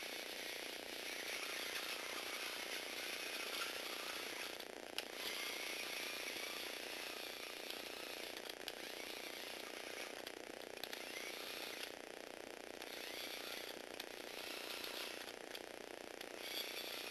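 Small Lego Technic robot driving across a wooden floor: the electric motor and plastic gearbox whir steadily with a rattle, with a few sharp clicks, one about five seconds in and another near the end.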